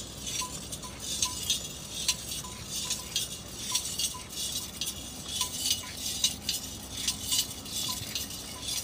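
Light metallic jingling and clinking that comes about twice a second, in step with walking, with small ringing notes among the strokes.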